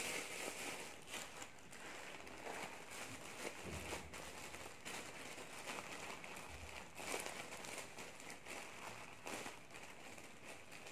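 Thin plastic bag crinkling and rustling faintly in the hands, on and off, with small clicks as it is pressed into place.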